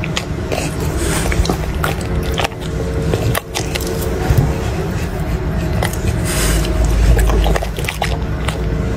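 French bulldog chewing and biting soft cooked chicken, a run of irregular wet clicks and smacks close to the microphone.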